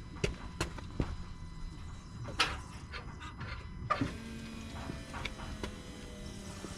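A few sharp clicks, then about four seconds in the Jeep Gladiator EcoDiesel's electric fuel pump starts a steady whir as the key is cycled: the pump priming and filling the fuel system after a fuel filter change.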